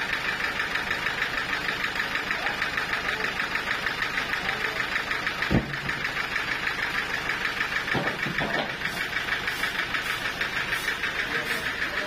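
A sawmill's engine running steadily with a fast, even throb. About halfway through, a heavy thump comes as a log rolled off the pile lands on the wooden skids, and a couple of lighter knocks follow a few seconds later.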